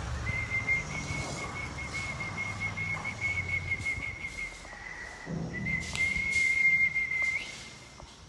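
A man whistling through pursed lips: one long, high, slightly warbling note. It sags a little lower and fainter about halfway through, comes back, and stops shortly before the end.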